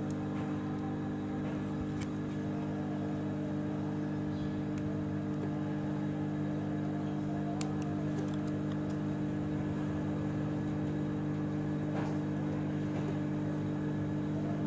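Steady machine hum made of several held low tones, with a few faint clicks over it.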